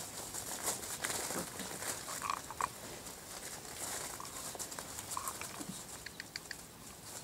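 Whippet puppies scampering over grass strewn with dry fallen leaves, their paws and a person's footsteps rustling and pattering in the leaves. A few short high squeaks come through, the last cluster near the end.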